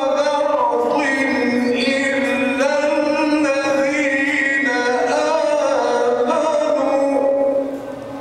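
A male qari's melodic Quran recitation in tajweed style, amplified through a microphone: long held notes with ornamented, winding turns in pitch. The phrase ends near the end.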